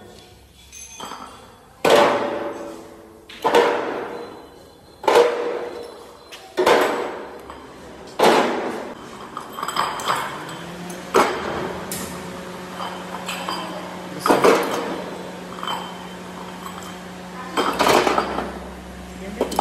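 Cast aluminium motorcycle wheel hubs dropped one by one into a steel wheelbarrow, each landing with a ringing metallic clank about every one and a half seconds.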